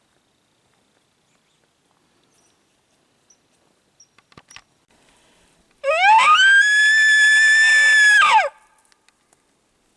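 Elk bugle: one loud call that rises quickly to a high whistle, holds it for about two seconds, then drops away, starting about six seconds in.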